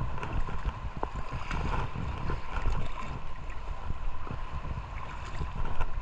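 Shallow seawater sloshing and splashing around the legs of a person wading, heard with a muffled, uneven rumble through a waterproof camera case.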